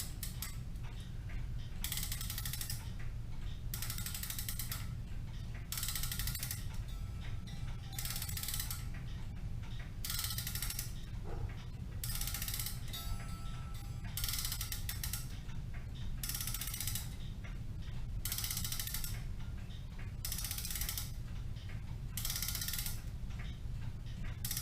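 Clock mainspring being wound with a key in repeated strokes, roughly one a second, each stroke a short run of ratchet clicks from the click and ratchet wheel.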